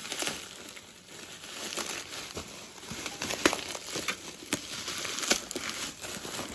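Plastic bubble wrap being unwrapped and handled: a continuous crinkling rustle with scattered sharp crackles.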